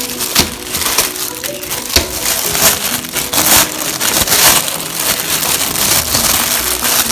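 Plastic packaging crinkling and crackling as it is handled and pulled open, in a run of loud, irregular bursts.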